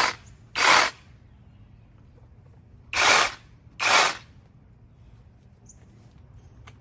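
Cordless brushless reciprocating saw run in four short bursts, in two pairs about three seconds apart, as the trigger is squeezed briefly and let go.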